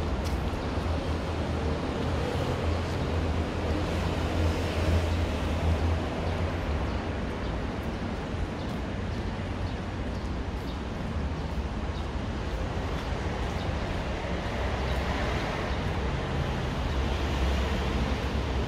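Steady road-traffic rumble, deep and continuous, with an even hiss over it.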